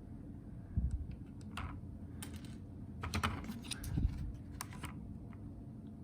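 Scattered light clicks and taps with two dull knocks, typing-like: small parts, tools and the circuit board being handled while soldering in new climate-control buttons.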